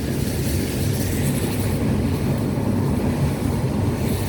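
Car driving steadily along a road, its engine and tyre noise a low, even rumble heard from inside the cabin.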